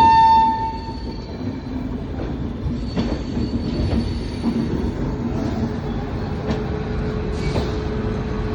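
An Indian Railways express train's locomotive horn ends a loud blast about a second in. Then comes the steady rumble of the departing train rolling over the rails, with a few wheel knocks and a faint steady wheel squeal joining about halfway.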